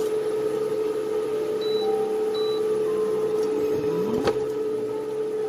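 Steady hum with one constant tone, with a short rising whine that ends in a sharp click about four seconds in.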